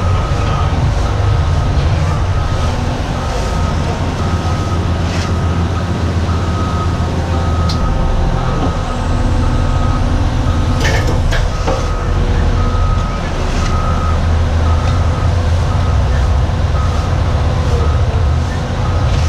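Heavy diesel construction machinery running steadily under a backup alarm that beeps about once a second. A few short metallic clanks come through the middle.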